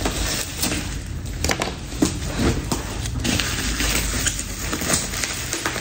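Plastic bubble-wrap packaging crinkling and rustling in irregular crackles and scrapes as a parcel is torn open and a cardboard box pulled out of it.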